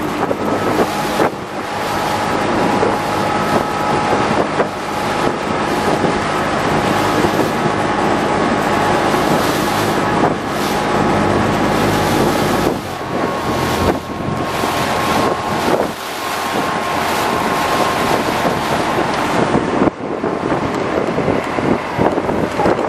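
Small fishing boat under way: its engine running steadily beneath a loud rush of wind on the microphone and water along the hull.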